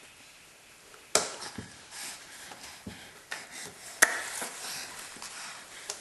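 A baby's hands slapping and patting on wooden stair treads as she crawls up the stairs: a series of sharp taps, the loudest about a second in and again at four seconds.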